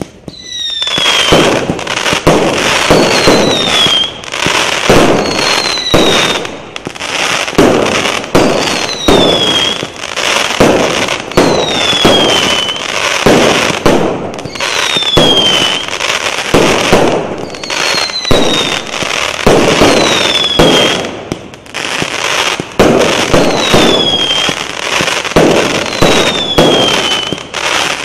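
A 100-shot 0.8-inch fireworks cake firing a rapid, continuous string of shots and bursts, starting suddenly. A short falling whistle sounds about every two to three seconds among the bangs.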